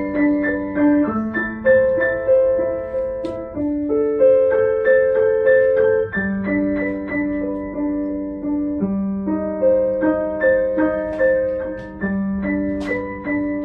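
Steinway grand piano played solo: low notes held for a few seconds each under a steady, even stream of repeated middle-register notes.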